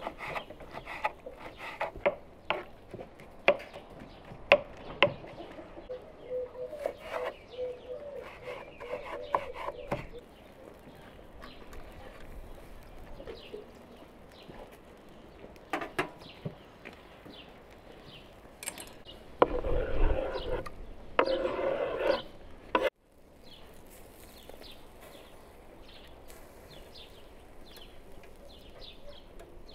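Kitchen knife chopping soft roasted eggplant on a wooden cutting board: a run of sharp knocks through the first ten seconds. Later come two louder stretches of scraping noise, each about a second and a half long.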